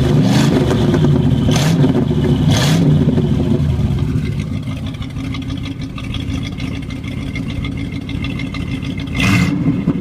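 Straight-piped 425 cubic-inch Cadillac V8 revved in quick throttle blips over the first three seconds, then settling to a lumpy idle, with one more short blip near the end.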